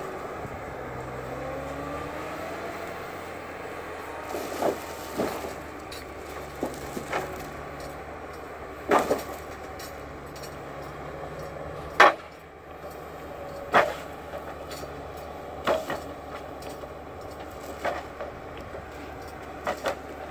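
Timberpro 840B forwarder running steadily, its engine pitch rising and falling in the first few seconds, with about a dozen sharp knocks and clunks at irregular intervals, the loudest about twelve seconds in.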